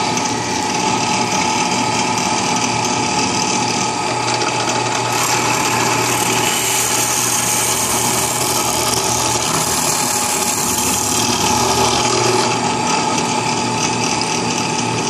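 Drill press running steadily with a 4 mm bit, boring the hotend bolt holes in a 3D-printed plastic extruder body. A harsher hiss from about five seconds in to about twelve seconds in marks the bit cutting into the plastic.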